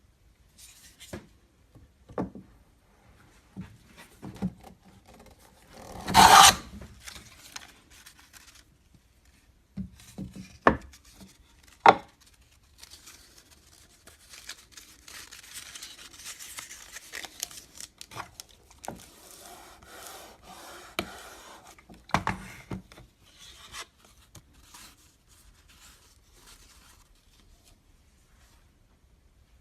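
Wood being worked by hand: scattered sharp knocks and taps, the loudest about six seconds in, with a stretch of rasping and scraping in the middle.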